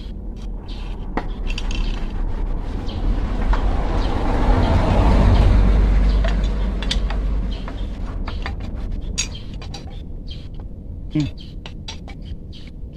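Sharp metal clicks and clinks of a long-shafted screwdriver turning screws on a scooter's aluminium throttle body. A broad rushing noise with a low rumble swells up to a peak about five seconds in and fades away again.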